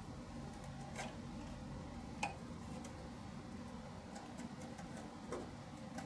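A few sharp clicks and fainter ticks of a hand tool working at the hub of an air-conditioner fan motor's plastic fan blade, the loudest about two seconds in, over a low steady background hum.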